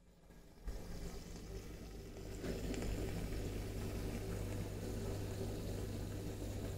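Aquarium water bubbling and fizzing from a stream of air bubbles, over a steady low electric hum of the tank's pump and filter equipment; it grows louder under a second in and then holds steady.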